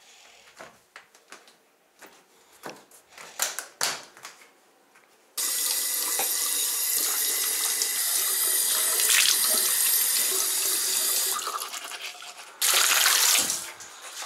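Bathroom sink tap running, water splashing over hands as they are washed. The flow starts abruptly about five seconds in, after a few soft knocks, and dies away about eleven seconds in; a short loud burst of noise follows near the end.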